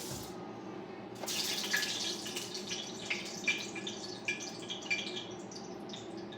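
Hot frying grease sizzling as a test bit goes in, starting about a second in with a burst of hiss and then crackling and popping on. The sizzle shows the oil is hot enough to fry the fish.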